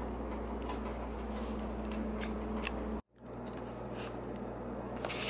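Steady low background noise with a constant hum and a few faint clicks. It drops out for a moment about three seconds in and then carries on at the same level.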